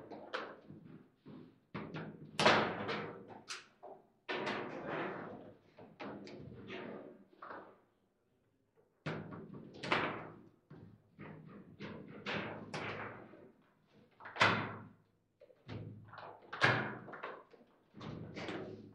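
Foosball table in fast play: a rapid, irregular run of sharp knocks and thunks as the ball is struck and rods and players hit the table. There is a pause of about a second midway.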